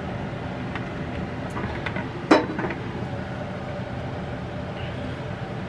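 Steady hum of a running kitchen appliance, with one sharp clink a little over two seconds in and a few lighter taps.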